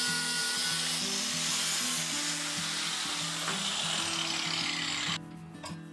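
Angle grinder cutting into a steel rebar rod clamped in a vise, a steady grinding hiss that cuts off suddenly near the end. Background music plays underneath.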